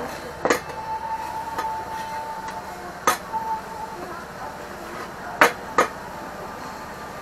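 Metal spatulas clinking and scraping on a flat iron griddle as pieces of grilled offal are turned: a handful of sharp strikes, the loudest two close together a little past the middle, over a steady sizzle from the hot plate.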